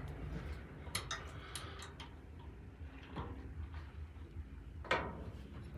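A few scattered light metal clicks and taps from hand tools on garage door torsion spring hardware as a grub screw is tightened, the loudest knock about five seconds in, over a low steady hum.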